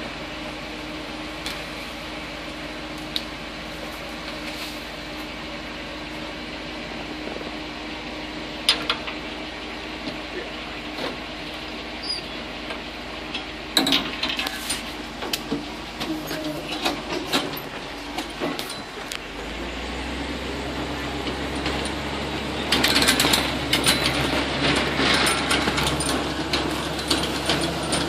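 Swamp buggy's engine running, with metal rattles and knocks from the open caged vehicle body. About two-thirds of the way through, the engine gets louder with a deeper rumble as the buggy moves along the trail, and the rattling grows busier near the end.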